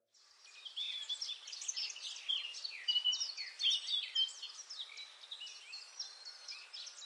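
Birdsong ambience: many small birds chirping and twittering at once, a busy overlapping chorus of quick high chirps that fades in about half a second in.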